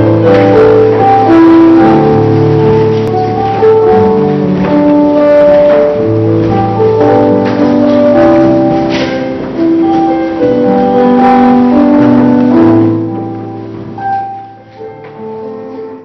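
Piano music with slow, held chords, dying away over the last few seconds.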